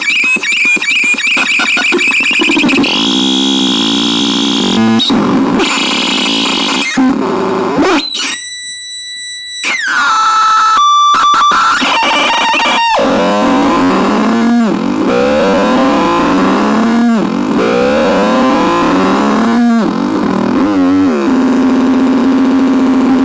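CASENAX synthesizer playing harsh, distorted noise tones with gliding pitch. About eight seconds in it switches to a clean buzzy tone for a couple of seconds, then sounds a run of falling sweeps, about one every two to three seconds, and settles into a steady drone near the end.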